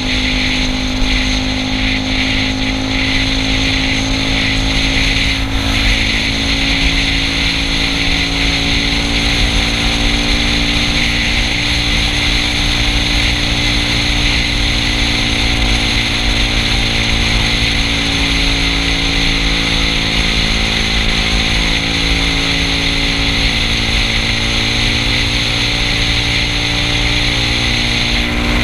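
Yamaha Cygnus scooter's single-cylinder four-stroke engine running at a steady cruising speed, its pitch holding nearly level, under a steady rushing hiss of wind and road noise from the moving scooter.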